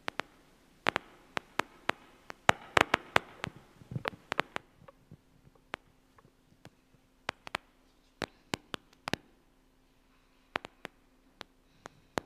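Footsteps and shuffling of people moving about on a stage: irregular sharp taps and clicks, busiest between about two and five seconds in, then sparser.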